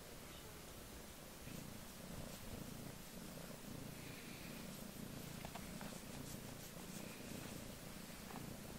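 A black-and-white cat purring, a faint steady rumble that starts about one and a half seconds in.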